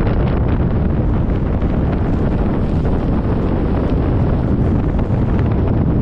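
Strong wind buffeting the microphone, a loud, steady low rush of noise.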